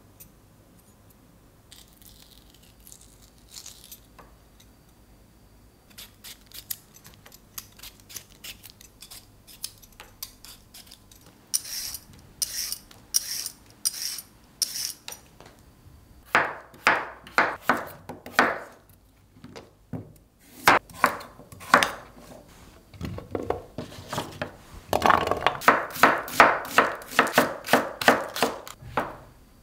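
IKEA VÄRDEFULL Y-peeler scraping strips off a carrot in quick repeated strokes, then a kitchen knife chopping green onion on a wooden cutting board, with a fast run of knocks near the end.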